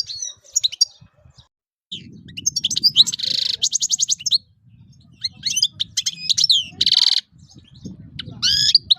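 European goldfinch singing in quick twittering phrases, broken by short buzzy notes and a fast, evenly spaced trill about three seconds in. The song pauses briefly after the first second.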